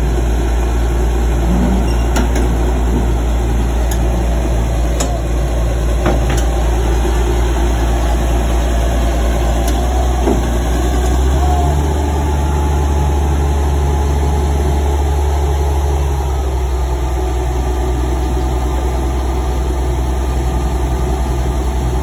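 Caterpillar crawler bulldozer's diesel engine running steadily, its low note shifting about halfway through as the engine speed changes. A few faint knocks come in the first several seconds.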